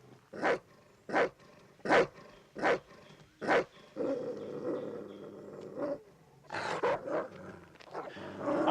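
A dog barking aggressively, five sharp barks about three-quarters of a second apart, then a longer growl and a few more barks.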